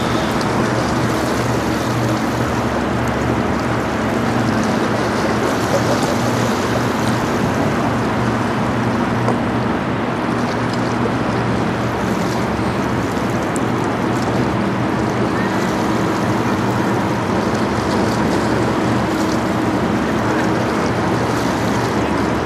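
Steady low drone from the engines of the passing 1,000-foot lake freighter American Integrity, over a constant rush of moving water and wind.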